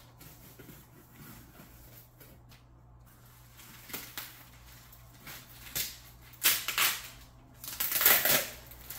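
A gift package being opened by hand. It is quiet at first, then comes a handful of short bursts of rustling packaging, the loudest near the end.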